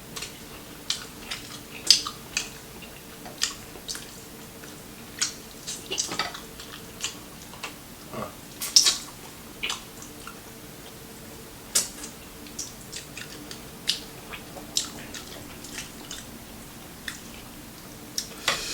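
Close-miked chewing and crunching of crispy fried chicken: irregular crisp crunches and wet mouth clicks, a few each second, over a faint steady hum.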